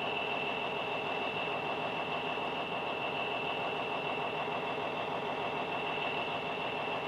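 Heavy diesel truck engine idling steadily, with a steady high whine above the engine note.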